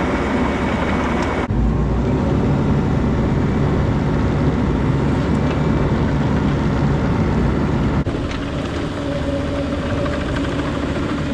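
Bobcat mini excavator's diesel engine running steadily, with an abrupt change in the sound about a second and a half in and again about eight seconds in.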